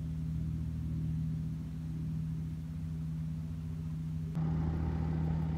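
Steady low engine hum from an unseen motor running throughout. It changes abruptly and gets a little louder about four seconds in.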